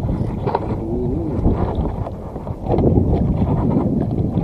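Wind buffeting the camera's microphone, a steady low rumble.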